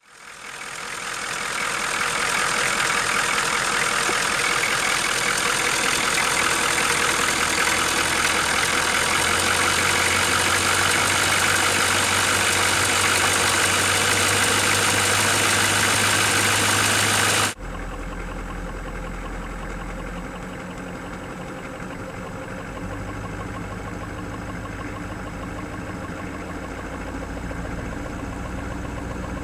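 1987 Ford F350's 6.9-litre V8 IDI diesel idling with a knocking noise whose cause the owner doesn't know. About two-thirds of the way through, the sound drops abruptly to a quieter, deeper version of the same idle.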